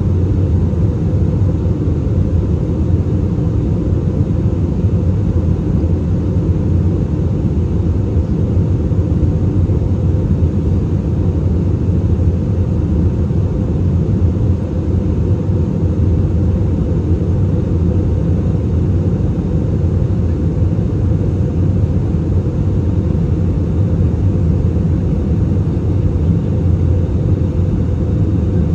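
Jet airliner cabin noise while climbing out after takeoff: a steady low rumble of the engines and rushing air heard through the fuselage, with a faint steady high tone above it.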